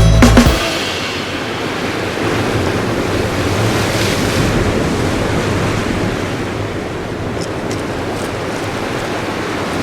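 Surf washing on the shore with wind on the microphone, a steady rushing that swells and eases. Music cuts off about half a second in.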